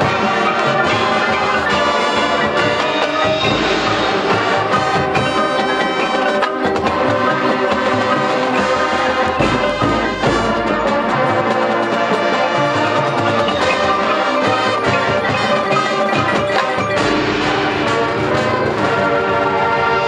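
Marching band playing a full-ensemble passage: brass over the front ensemble's mallet percussion and drums, in a steady rhythm.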